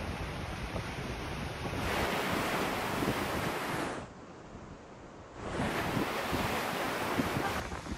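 Sea waves breaking and washing over coastal rocks. The surge drops away briefly about four seconds in, then swells back.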